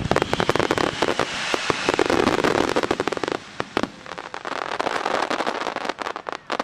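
Fireworks barrage: a rapid run of sharp bangs and crackling over a dense hiss, heaviest in the first few seconds, easing for a moment near the middle, then going on more thinly.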